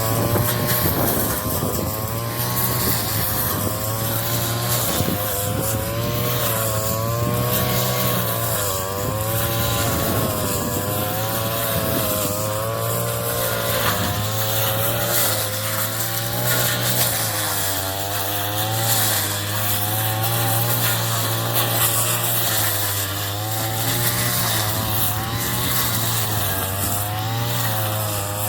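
Engine-powered straw chopper running steadily, its pitch wavering up and down every second or so as it cuts straw.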